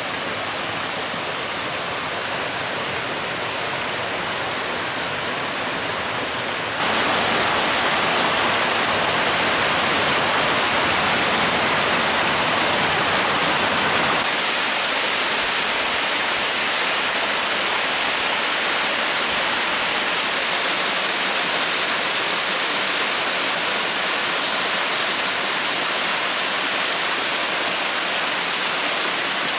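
Rushing water of a forest creek and small waterfall: a steady hiss of falling and splashing water. It gets louder twice in sudden steps, about a quarter and about halfway through.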